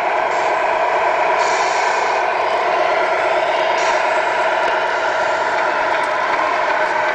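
Tamiya 1/14-scale RC trucks giving off a steady truck-engine drone, with short hisses like air-brake releases several times in the first half.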